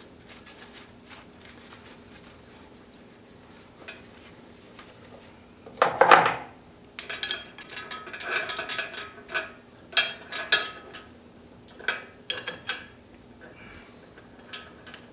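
Metal clanking and rattling while a lathe is rigged for lifting: quiet at first, a loud clatter about six seconds in, then a run of sharper clinks and rattles until near the end, over a faint steady hum.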